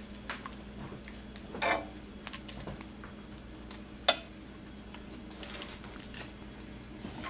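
A metal ladle clinking and scraping in a cast-iron skillet as thick curry is spooned onto a paper plate of rice. The clinks are scattered, and the sharpest comes about four seconds in.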